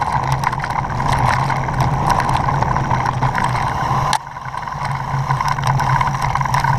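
Off-road motorcycle engine running steadily under way on a gravel track, with stones and rattles clicking throughout. About four seconds in the engine sound drops suddenly, then builds back up.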